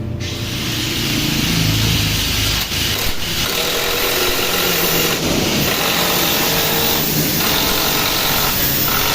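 Motorstar 150N underbone motorcycle engine running through an aftermarket SC Project racing muffler. It gets louder over the first couple of seconds, then holds steady.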